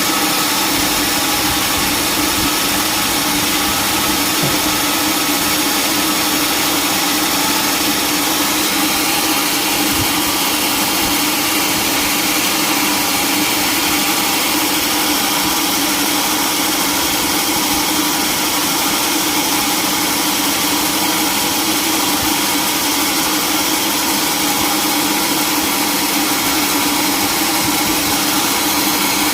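Sawmill machinery running steadily, an unbroken engine-like drone that does not change.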